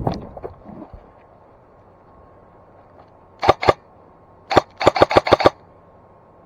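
Airsoft gun firing: two quick shots about three and a half seconds in, then a rapid string of about seven shots a second later.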